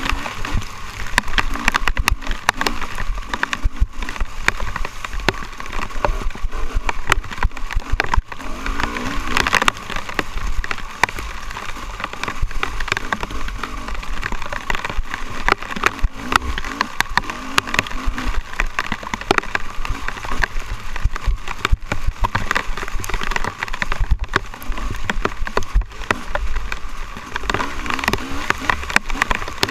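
Off-road dirt bike engine running hard through a trail ride, its pitch rising and falling with the throttle, over a constant clatter of knocks from the rough ground and rain pattering on the machine.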